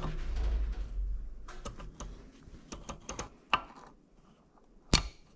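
Snap ring pliers and the piston of a brake master cylinder clicking and scraping as the piston is pushed in and the snap ring is worked at. There are scattered light metal clicks, with a few sharper snaps in the second half.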